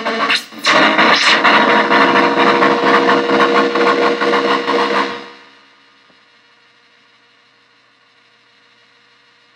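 Harsh synth noise from a MicroBrute synthesizer cross-patched with a Nova Drone and played through a bass practice amp: a dense buzzing wall with many held tones and a quick sweep up near the start. It fades out about five seconds in, leaving a faint hum.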